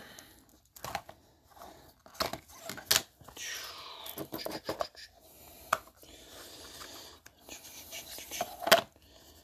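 Box cutter slicing the paper seal band on a sealed trading-card box, then the box being opened and handled: scattered clicks and knocks, a tearing, scraping sweep about three seconds in, a softer steady rustle, and a sharp click near the end.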